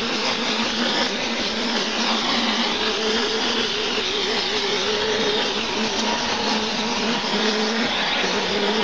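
Mortar spraying machine at work: a compressed-air spray gun blasts cement-sand mortar onto a wall with a steady hiss, over the even hum of the machine's air pump.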